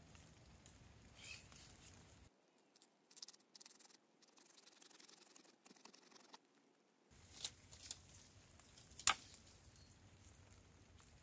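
Pruning shears snipping through a woody Tahiti lime branch to sever a rooted air layer: a few faint clicks, then one sharp snip about nine seconds in.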